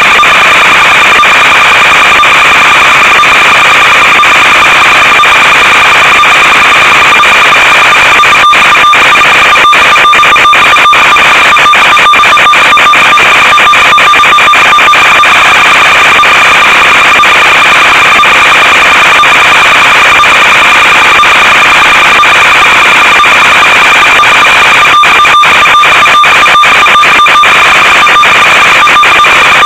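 Loud, steady, harsh buzz with an unchanging high tone, carried on the audio of an analog FPV video downlink from an RC plane in cruise flight. It is broken by clusters of rapid, brief dropouts about a third of the way in and again near the end, the sign of the radio signal glitching as the plane flies farther out.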